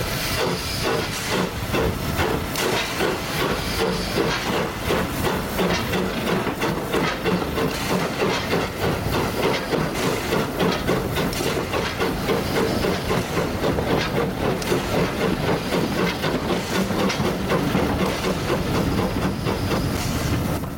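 Brighton Terrier 0-6-0 tank locomotive No. 32678 working steam as it pulls away, its exhaust chuffing in a steady rhythm over a constant hiss of steam.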